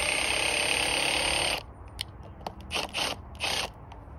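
Cordless drill running steadily as it drives a screw into a tree trunk, stopping about one and a half seconds in, then three short bursts as the screw is snugged down.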